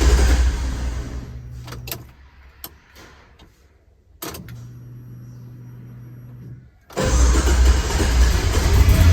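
LS1 V8 engine in an HQ Holden running at a cold idle, fading out over the first two seconds. After a few sharp clicks and a faint steady low hum, the engine is running loud again from about seven seconds in.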